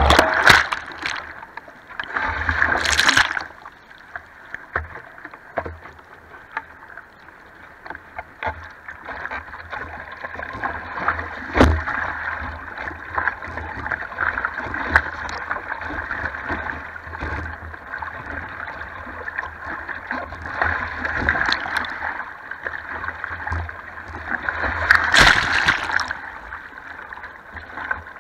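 Sea water sloshing and splashing over a surfboard and the camera mounted on its nose, a steady muffled wash with loud surges as whitewash breaks over it just after the start, about three seconds in and again about 25 seconds in. A single sharp knock comes near the middle.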